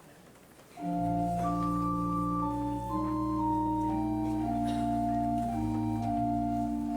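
Church organ playing: about a second in it begins a slow hymn-like passage of held chords that move from one to the next over a deep sustained bass note.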